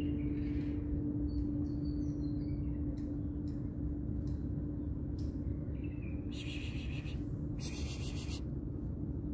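Steady outdoor background rumble with a constant low hum, and a few faint bird chirps about two seconds in. Near the end come two short bursts of crinkling from a disposable plastic glove on a hand reaching toward the kitten.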